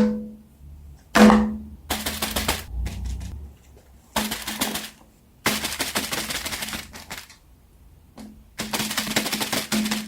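Bursts of rapid, dense clicking, four runs of a second or two each, with a plucked musical note about a second in.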